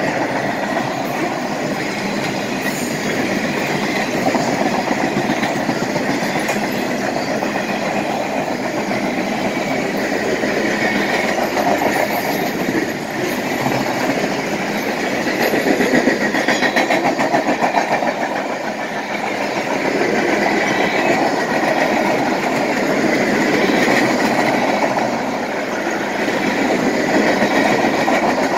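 Freight train of loaded flatcars rolling past, steel wheels clattering steadily over the rail joints, the level swelling and easing a little as the cars go by.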